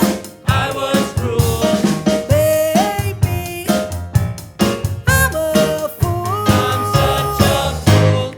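Music: several voices singing held notes in harmony over a drum kit with snare and bass drum hits. The music drops out briefly near the end.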